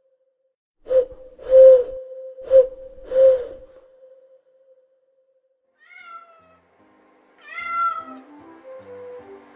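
An owl hooting four times in two pairs. A domestic cat then meows twice, each meow falling in pitch, and a light tune starts near the end.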